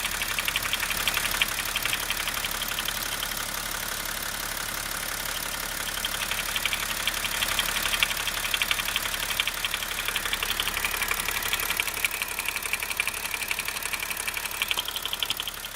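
BMW E70 M57 straight-six diesel idling, with a rapid knocking heard from the oil filler neck; the ticking swells and fades in stretches. The owner does not know its cause.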